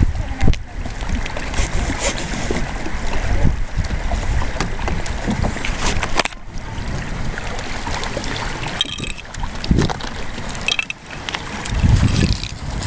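Wind buffeting the microphone in surges, over scattered clicks and rustles from the straps and plastic hull panels of a folding hard-shell kayak being fastened by hand.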